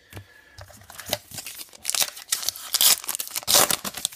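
Baseball card pack wrapper being torn open and crinkled by hand: a series of irregular rips and rustles, loudest from about two seconds in.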